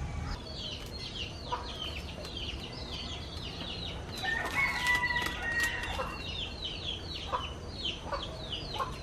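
Chickens chirping: a steady run of short, high, falling chirps, several a second.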